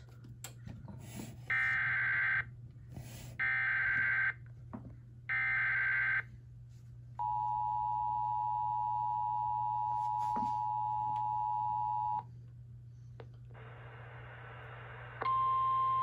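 TFT EAS 911 Emergency Alert System decoder playing a Flash Flood Warning alert through its speaker: three bursts of SAME header data, each about a second long, then the two-tone EAS attention signal held for about five seconds. After a short pause, static from the replayed weather radio audio comes in, and a single steady tone starts shortly before the end.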